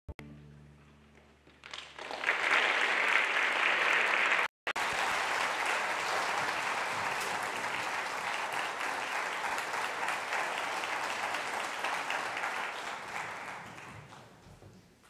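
Audience applauding a school string orchestra at the end of a piece: the final chord rings away in the hall, clapping starts about two seconds in, holds steady and fades out near the end. The sound cuts out for an instant about four and a half seconds in.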